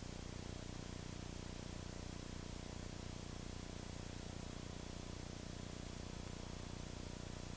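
Steady, faint hiss with a low hum, the muffled drone of a Citabria light aircraft in flight, unchanging throughout.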